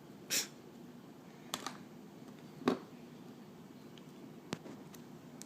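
A few separate knocks and taps from loaves of glycerin soap being cut into slices and the slices handled. There is a short knock right at the start, a pair of light taps, a sharper, louder knock near the middle, and a faint tick later.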